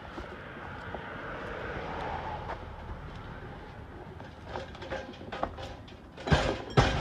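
A rushing noise that swells and fades, then scattered knocks and rattles of junk being handled, with two heavy thumps near the end.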